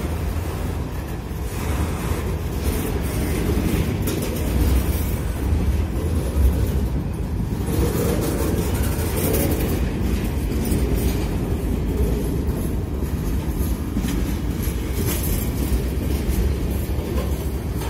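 Covered hopper cars of a freight train rolling past, a steady rumble of steel wheels on the rails.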